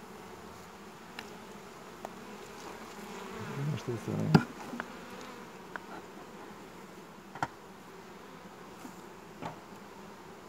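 Honeybees buzzing steadily around an opened hive, over scattered sharp clicks and knocks from the wooden hive parts and metal hive tool as the hive is worked. The loudest knock comes about four seconds in.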